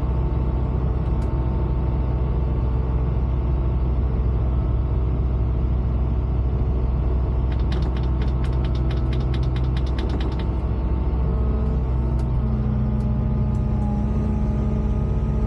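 Volvo EWR150E wheeled excavator's diesel engine running steadily while the machine's hydraulics press a tight end cap onto a stormwater pipe. Midway a rapid run of about twenty clicks lasts some three seconds.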